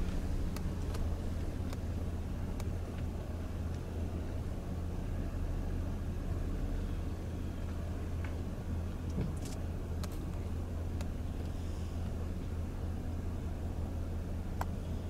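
A car driving with a steady low rumble, with a few faint ticks or clicks scattered through.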